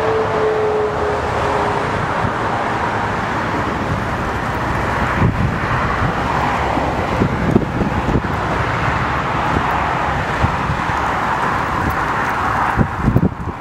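Jet airliner's engines on final approach, a steady rushing roar with a thin whine that falls and fades in the first two seconds. Scattered low thumps, mostly about five to eight seconds in and near the end, sound like wind gusts hitting the microphone.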